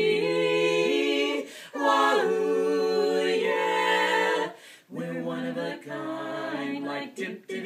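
Women's vocal quartet singing doo-wop a cappella, holding long harmonised chords in three sustained phrases with short breaks between, then shorter choppy notes near the end.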